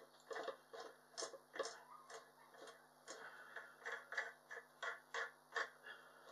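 Light, uneven metallic clicks from a large snapper fishing reel as its centre nut and spool are worked by hand, a dozen or so in a few seconds.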